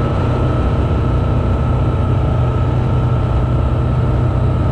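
Single-engine light aircraft's engine and propeller droning steadily, heard from inside the cockpit during the approach to land, with a steady high tone above the drone.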